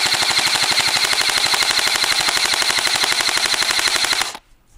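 Airsoft gun firing 0.20 g BBs on full auto: one long rapid burst of shots with a steady high whine through it. It stops abruptly about four seconds in.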